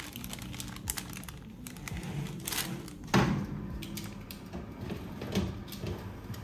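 A metal baking tray lined with parchment being handled and slid into a countertop electric oven: light clicks and paper rustles, with a sharp metal knock about three seconds in and a smaller one a couple of seconds later as the tray meets the oven's rack.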